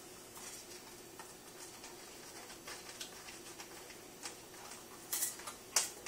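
Light plastic clicks and taps from hands working a Bosch dishwasher's plastic control panel loose, with a louder cluster of clicks about five seconds in.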